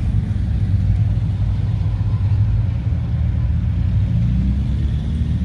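A classic car's engine idling steadily, its sound low in pitch and even.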